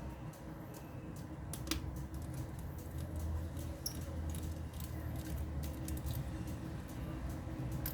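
Small scattered clicks and taps of tools and plastic parts being handled while a Samsung Galaxy S3 phone is taken apart, with one sharper click about two seconds in, over a low steady rumble.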